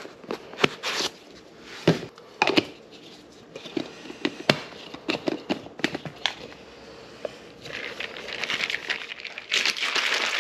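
Scattered plastic clicks and knocks from a drink-powder tub and a shaker bottle's flip cap being handled and snapped shut. In the last couple of seconds the shaker bottle is shaken hard to mix the powder, a dense steady rattle.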